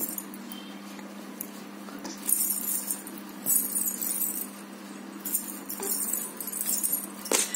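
Metallic jingling, like small bells, in four or five short bursts over a steady low hum.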